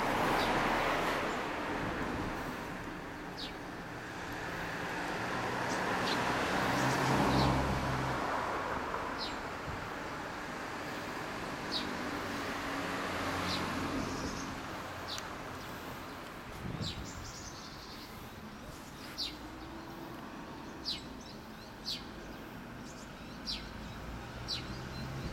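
Small birds chirping in short, scattered chirps over a background of vehicle noise that swells during the first several seconds and then settles to a steady hum.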